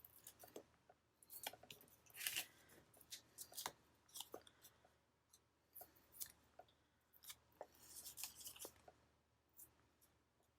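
Faint paper handling: scattered small clicks and short crinkles as foam adhesive pop squares are peeled from their backing and pressed onto a paper card.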